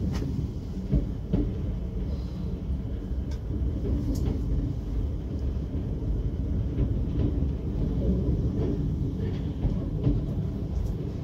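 Class 455 electric multiple unit moving off slowly, heard from inside its rear cab: a steady low rumble with a few sharp clicks.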